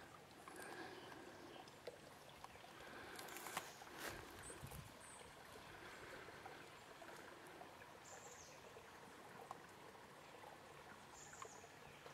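Faint outdoor pasture ambience: a soft steady hiss with a few short, high bird chirps and some brief soft crackles and rustles.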